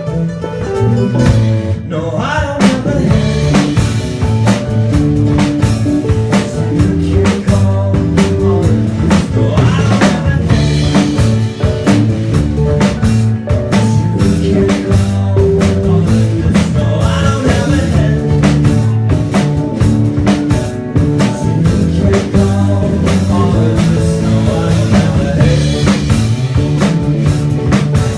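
Live rock band playing loud, with electric guitar, bass and drum kit. The picked guitar is joined by the full drum kit about two seconds in.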